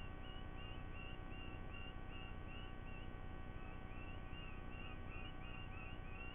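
Even, rapid chirping, about three short high notes a second, over a steady electrical hum.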